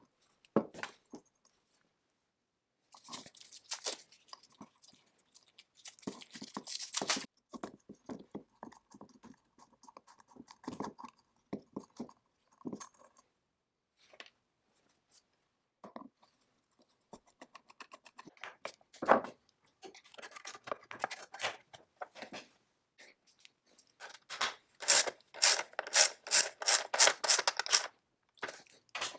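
Light scraping and small metal clicks from hand tools worked against a chainsaw's painted metal housing. Near the end a socket ratchet clicks loudly and evenly, about three clicks a second, as a bolt is turned.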